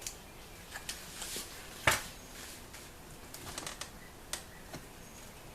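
A flat-blade screwdriver bit prying at a plastic interior door trim piece on a 2003 Toyota Camry: scattered light clicks and scrapes, with one louder click about two seconds in.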